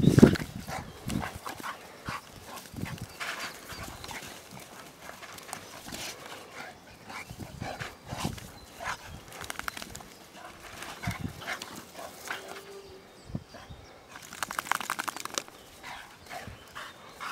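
Two dogs wrestling: growls and snarls come in irregular bursts over scuffling on the ground. The loudest burst is right at the start, and another comes about fifteen seconds in.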